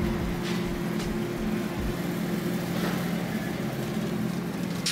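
Steady low electrical hum of supermarket freezer cases, with a few faint clicks.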